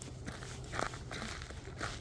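Footsteps crunching on a trail, two steps about a second apart, over a low rumble on the microphone.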